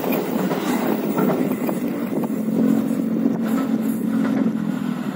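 JR 205 series electric commuter train passing close by, its rear cars running over the rails and then moving away. A steady low hum comes in about two seconds in.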